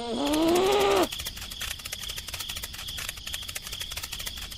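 A cartoon-style vocal sound effect lasting about a second, its pitch rising then falling, followed by a dense crackling clatter of fine clicks.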